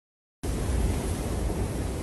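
Dead silence for a moment, then a steady rush of storm wind buffeting the microphone, with a deep rumble.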